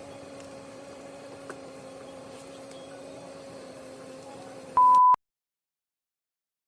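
A faint steady electrical hum holding two pitches. About five seconds in, a short, loud, pure electronic beep cuts off abruptly into dead silence.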